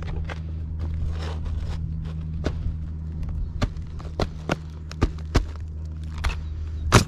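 Roofing work on the roof deck: a series of irregular sharp knocks that begins about two seconds in and comes every half second or so, the loudest near the end, over a steady low hum.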